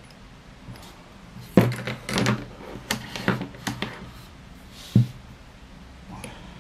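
Handling knocks and clicks of a hollow survival-stick tube and a pen. There is a sharp knock about one and a half seconds in, a run of taps and clicks over the next two seconds, and one more knock about five seconds in.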